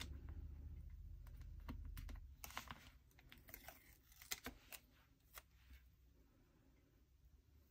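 Faint clicks and taps of long fingernails and paper letter stickers being peeled off a sticker sheet and pressed onto a planner page, with a low rumble of hands on the desk in the first two seconds.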